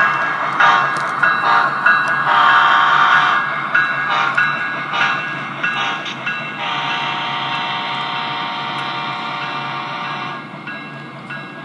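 HO scale model locomotive's sound system sounding its horn: a string of short toots and a longer blast, then one held for about four seconds that stops about ten seconds in. Under the horn runs a steady engine rumble that carries on alone near the end.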